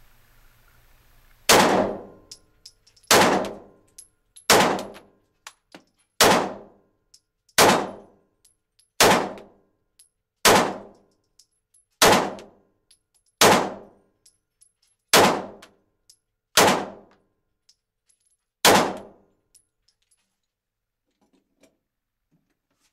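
Glock 19 Gen 3 9mm pistol firing twelve single shots, slow and evenly paced at about one every second and a half. Each shot is a sharp crack with a short echoing tail from the enclosed indoor range.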